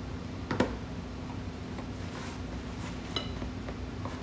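Light clicks and taps of cheese slices being handled and laid over noodles in a plastic food container, one sharper click about half a second in. A steady low hum runs underneath.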